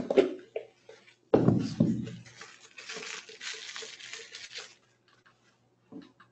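Two handling thumps, then about two seconds of crinkling and tearing as plastic packaging is torn open.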